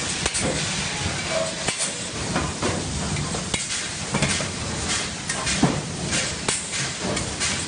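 Pneumatic blind rivet gun at work: a steady hiss of compressed air, broken by irregular sharp snaps as rivets are pulled and their mandrels break off.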